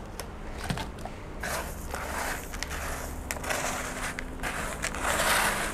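Bare hands scooping and turning a chunky potting mix of leca pebbles, horticultural charcoal and orchid bark in a plastic bowl: repeated gritty crunching and rustling strokes about once a second, the strongest near the end.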